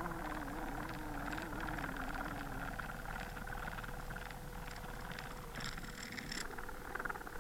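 Muffled underwater sound picked up by a submerged camera: a faint steady hum with scattered clicks and crackles. A wavering lower drone, like a motor, fades out in the first few seconds.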